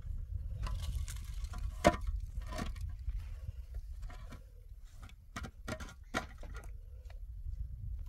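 Concrete hollow blocks being set into a dirt trench: gritty scraping of block on soil and stones, a sharp knock about two seconds in, then a run of small knocks and trickling grit, over a low steady rumble.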